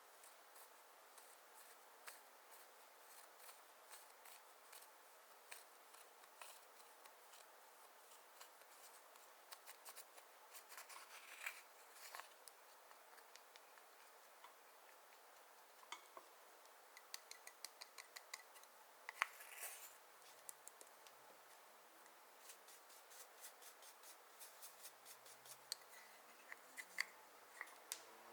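Faint, crisp clicks and crackles, scattered and coming in clusters, from hands working clear slime and eyeshadow together.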